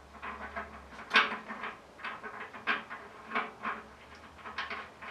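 Irregular metallic clicks and knocks of hand tools and engine parts being handled, the sharpest knock about a second in.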